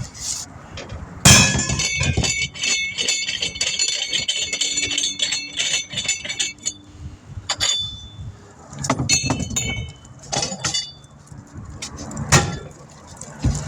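Metal clanking and jingling: a sharp clank about a second in, then several seconds of rattling, ringing metal pieces. Several more separate clinks come near the end.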